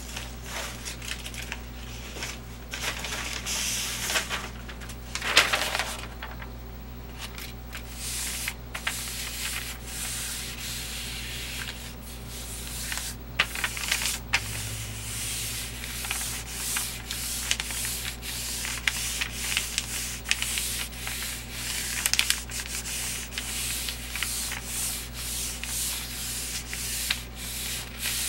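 A hand rubbing a sheet of paper pressed onto a homemade gelatin printing plate, burnishing it to pull a print: a steady run of dry rubbing strokes. There is louder paper rustling about five seconds in, as the sheet is handled.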